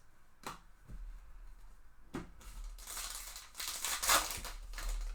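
A foil trading-card pack wrapper being torn open and crinkled by hand: a couple of short rips, then a run of dense crackling rustle, loudest a little past the four-second mark.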